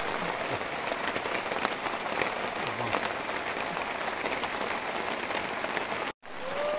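Rain pattering on a plastic tarp shelter: a steady crackling hiss with scattered small taps. Near the end, after a short break, a high, drawn-out voice starts.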